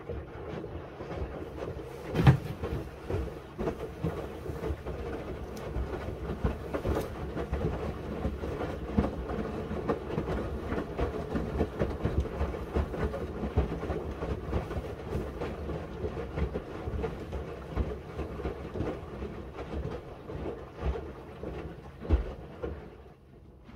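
Miele W1 WCR 890 WPS front-loading washing machine's drum turning with a load of linen bedding: a steady rumble with irregular knocks as the laundry tumbles, which drops away sharply near the end as the drum stops.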